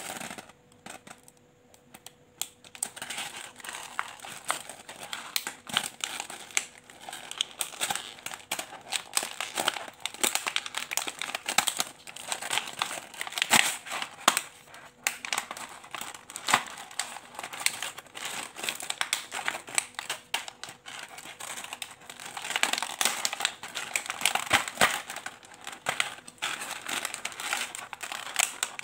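Clear plastic wrapping crinkling and crackling as hands work at it around a plastic bead tray, starting about two seconds in and going on in dense, irregular crackles.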